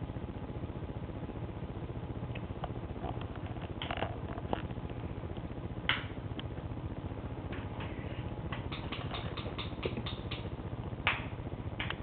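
Steady low hum with scattered small clicks and rustles, including a quick run of about ten clicks in the last third.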